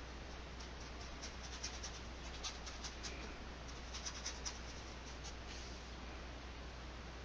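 Nylon flat paintbrush scrubbing and dabbing acrylic paint onto a stretched canvas: a run of short, scratchy strokes that stop about two seconds before the end.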